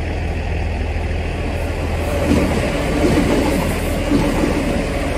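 Class 166 diesel multiple unit running in alongside the platform. Its steady low rumble grows louder about two seconds in as the carriages come past close by.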